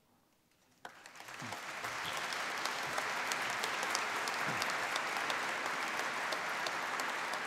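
Audience applauding: the clapping starts about a second in, builds quickly and holds steady.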